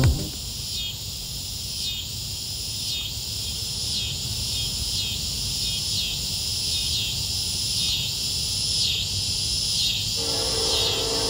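Insects chirping in a pulsing rhythm, about one pulse a second, over a low steady rumble. About ten seconds in, a sustained chord of steady tones comes in.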